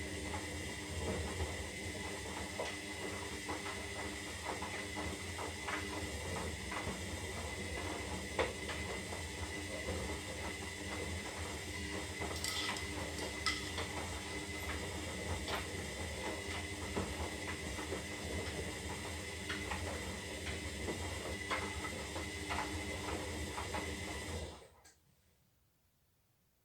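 Zanussi Lindo 300 washing machine turning its drum during the synthetics wash cycle: a motor hum with a steady high whine, laundry and water sloshing, and small clicks and knocks from items striking the drum. The drum stops suddenly about 25 seconds in, the usual pause between turns in a wash phase.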